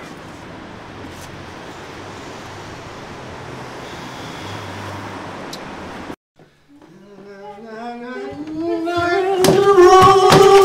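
A steady background hiss that cuts off abruptly about six seconds in. Then a long howl rises slowly in pitch and swells to loud, held near the end, with several sharp knocks over it.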